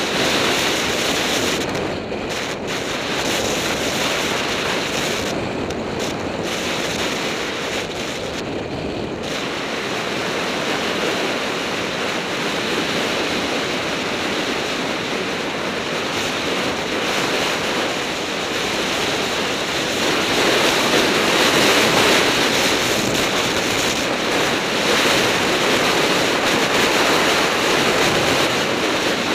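Steady rush of wind buffeting the camera's microphone at speed on a fast downhill road descent, growing louder about two-thirds of the way through as the speed picks up.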